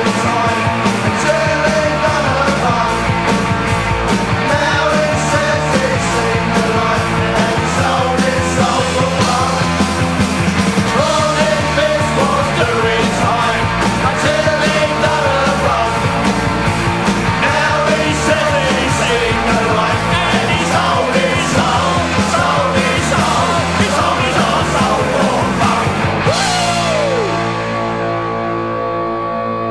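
Punk rock song with shouted singing over steady fast drums and a full band. About 26 seconds in the drums and singing stop, leaving a ringing chord with a falling slide that fades away.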